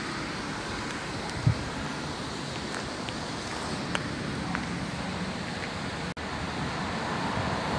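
Steady rushing of wind on the phone's microphone outdoors, with a few faint taps.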